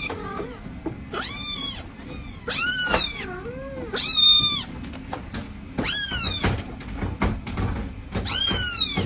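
A cat meowing repeatedly: about six drawn-out meows, a second or two apart, each rising and then falling in pitch.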